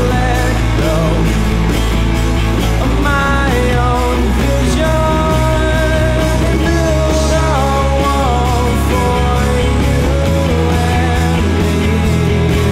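Rock band playing live: electric guitars, bass and drum kit, with a sliding, wavering melody line over a steady low end.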